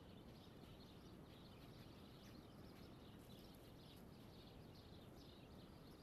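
Near silence: faint outdoor background noise.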